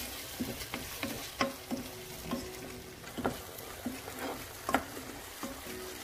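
A wooden spatula stirring thick curry masala in a nonstick wok over a low sizzle of frying. It knocks and scrapes against the pan at irregular intervals, with three louder knocks.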